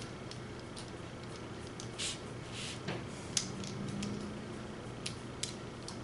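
Light scattered clicks and short scrapes of small plastic RC truck parts and a hand screwdriver being handled while camber links are fitted to the chassis, with one sharper click about three and a half seconds in.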